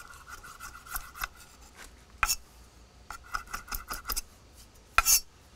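Knife chopping cilantro on a wooden cutting board: quick runs of light taps at the start and again about three seconds in, with two louder knocks of the blade on the board between them and near the end.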